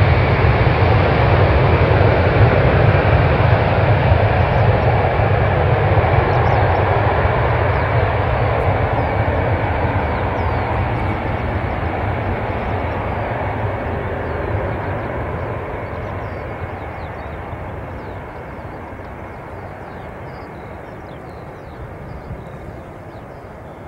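Boeing 747's four jet engines at takeoff power, heard from behind as the jet rolls away down the runway; the loud engine noise fades steadily as it draws off.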